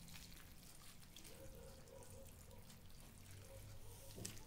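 Marinade poured from a saucepan onto shredded cabbage in a bowl: a faint, steady trickle of liquid.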